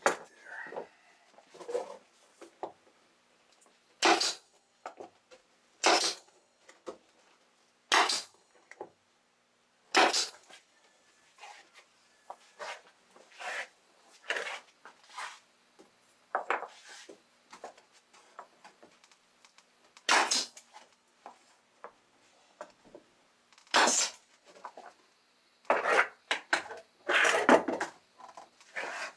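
Pneumatic brad nailer firing single shots into a curved wooden fascia strip: a sharp snap every couple of seconds at first, then at longer gaps. Softer knocks and scrapes of the wood being handled come between shots, and a denser run of them near the end.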